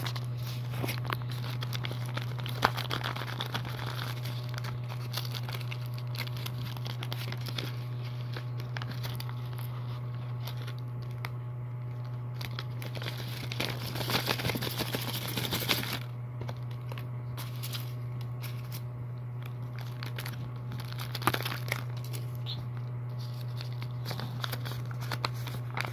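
Handmade paper blind-bag packets being handled and opened: paper crinkling and rustling, with a louder stretch of tearing about halfway through. A steady low hum runs underneath.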